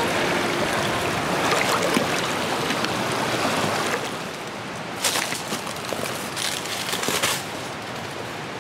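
Creek water flowing over rocks, a steady rushing hiss, with a few brief scrapes or rustles around five and seven seconds in.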